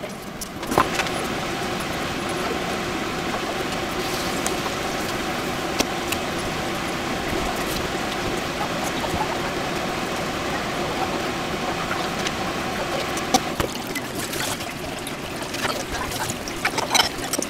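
Boiling water in a large pot of soba noodles being stirred gives a steady rushing hiss. Near the end, tap water runs onto the noodles in a plastic colander in a steel sink, with a few clatters.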